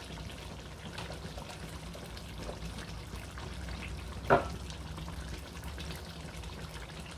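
Curry gravy simmering and bubbling softly in a steel karahi, over a steady low hum, with one short louder sound about four seconds in.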